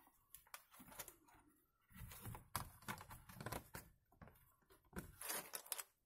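Quiet handling sounds as the plastic bottom case of a mechanical keyboard is put back on: scattered soft knocks and plastic rustling in irregular clumps.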